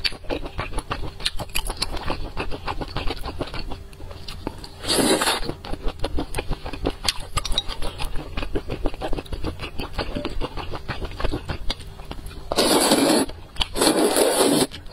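Close-up eating sounds: steady wet chewing and mouth clicks, a short slurp about five seconds in, then two long loud slurps of glass noodles from spicy broth near the end.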